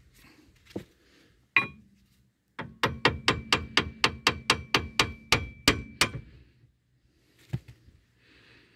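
Hammer blows on the steel of a car's front suspension, driven to shake loose a seized lower ball joint. A couple of single knocks, then a quick run of about a dozen ringing metal-on-metal strikes at three or four a second, and one last knock near the end.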